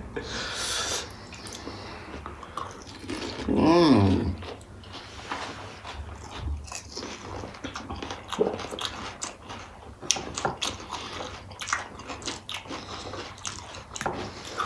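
Close-up chewing and crunching of pani puri, the crisp fried puri shells breaking in the mouth as many small irregular crunches. A short hummed voice sound comes about four seconds in.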